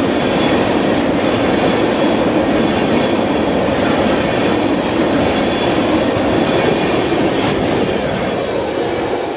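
Freight train of tank cars rolling past at close range: a steady rumble of steel wheels on the rails with clickety-clack over the rail joints. It eases off near the end as the last car goes by.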